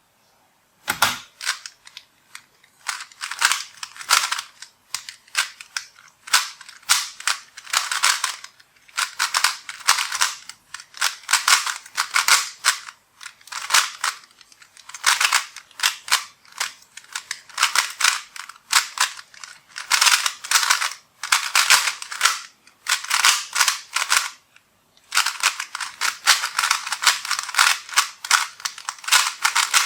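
Fangshi ShuangRen V2 3x3 speedcube turned fast by hand: rapid plastic clicking and clacking of layer turns in bursts of several seconds, broken by short pauses between steps of the solve. A single dull knock about a second in.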